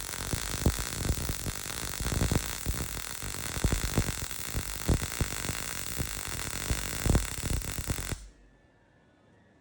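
Arc welding on a steel frame: a steady crackling hiss with irregular pops that cuts off suddenly about eight seconds in as the arc stops.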